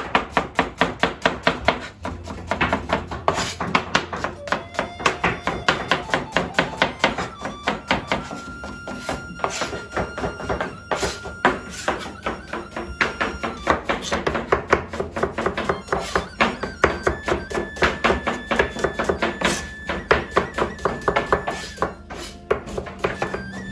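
Knife rapidly dicing onions on a cutting board, a fast, even run of knocks about four or five a second, with background music.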